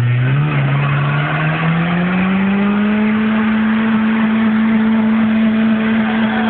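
Ford Escort's engine revving up over a couple of seconds and then held steady at high revs while the driven wheels spin in a smoky burnout.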